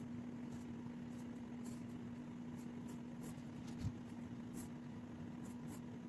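A steady low hum with faint scattered ticks, and one soft thump about four seconds in.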